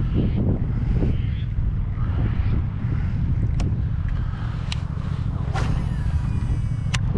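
Wind buffeting the microphone as a steady low rumble, with a few sharp clicks and knocks in the second half.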